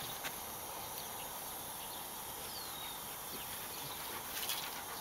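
Quiet outdoor ambience: a steady faint hiss, one short high falling chirp about halfway through, and a few light clicks near the end.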